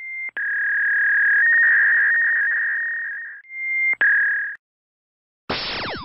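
A steady, high-pitched electronic beep tone, broken by a click about a third of a second in and again at about four seconds, where its pitch briefly steps up and then drops back. It stops at about four and a half seconds. Near the end a noisy burst of falling, whistling sweeps begins.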